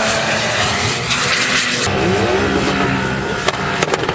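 Off-road 4x4 engines running hard at high revs while driving on sand dunes. About halfway through the engine pitch swings up and down as it revs, and a few sharp cracks come near the end.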